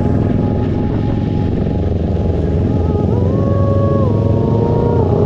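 Motorcycle running steadily on the road, with a few held musical notes stepping up and down in pitch over it from about three seconds in.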